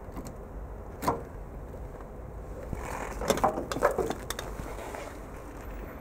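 Handling sounds at the powered-down tape library's power connector and rack: a single sharp click about a second in, then a short cluster of knocks and rattles around three to four seconds in, over a low steady hum.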